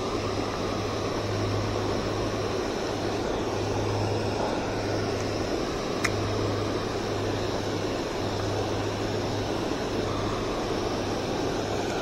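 Steady rushing of water pouring over a low stone spillway dam into the pool below, with a single sharp click about halfway through.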